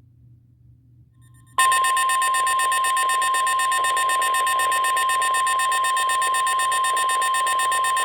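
NOAA Weather Radio's 1050 Hz warning alarm tone: after about a second and a half of faint receiver hum, a loud, steady single tone comes on and holds without a break. It is the alert signal that a new tornado warning is about to be broadcast.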